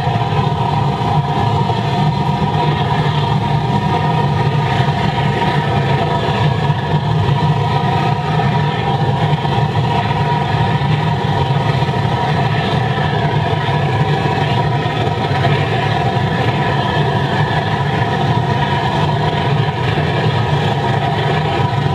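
Waste oil burner firing into a 205-litre steel drum furnace: a loud, steady rush of flame and air with several steady tones held through it, unchanging throughout.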